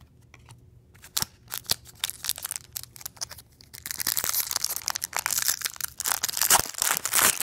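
Foil trading-card pack wrapper being handled and torn open: scattered crinkles at first, then, about four seconds in, a dense run of crinkling and tearing as the foil is ripped apart.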